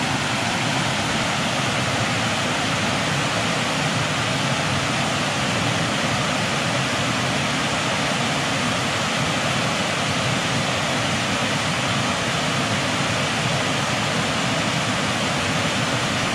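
Small waterfall, a drop of only a couple of feet on a woodland beck, rushing steadily with the beck in strong flow after rain.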